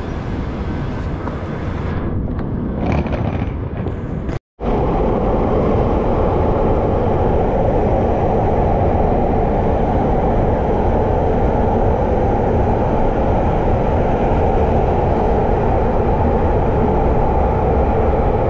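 London Underground train running on the rails: a steady noise, with most of its weight low down. The sound cuts out for an instant about four and a half seconds in, then carries on louder and more even.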